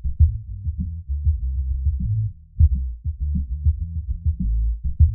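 Electronic music loop of a kick drum and a bass line playing back with only its low end soloed, everything above about 100 Hz muted. The bass has been EQ'd to make room, so the kick drum hits punch through the bass line. There is a short dip about two and a half seconds in, followed by a loud kick.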